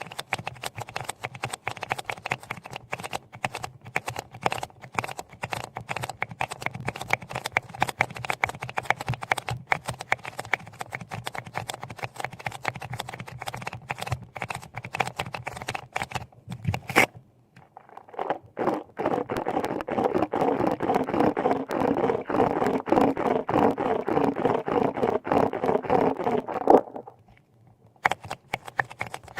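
Dense, rapid small clicks and taps. About seventeen seconds in they stop for a moment, then give way to a continuous scraping noise lasting about eight seconds. After a brief gap, the clicks resume near the end.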